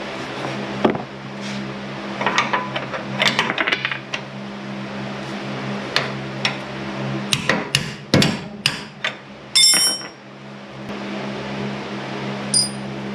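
Hand tools knocking and clinking on metal while working the seized bolt out of a rusted lower control arm: scattered sharp taps, a quicker run of knocks about eight seconds in, and a ringing metallic clang near ten seconds. A steady low hum runs underneath.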